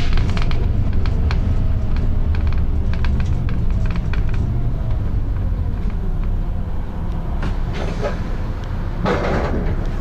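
Volvo B9TL double-decker bus's six-cylinder diesel engine thrashing under load, heard from inside the bus as a loud, steady low rumble, with many sharp clicks and rattles. A short burst of air hiss comes about nine seconds in.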